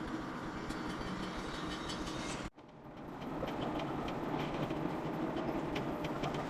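Steady mechanical running noise with a low hum and scattered light rattling clicks. It drops out abruptly about two and a half seconds in, then builds back up within about a second.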